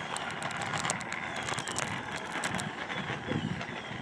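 Small plastic wheels of a flicker scooter rolling over pavement, with a quick run of sharp clicks and rattles during roughly the first two and a half seconds.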